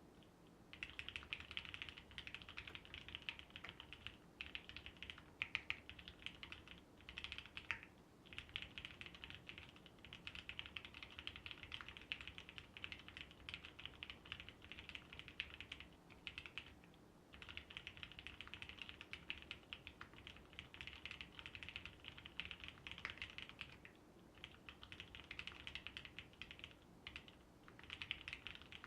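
Typing on a custom mechanical keyboard, a Lyn Whale case with lubed vintage Cherry MX Black linear switches on 55 g springs, a polycarbonate half plate and CRP HammerWorks keycaps. It is a fast, continuous run of keystrokes that starts about a second in and breaks off for a few short pauses.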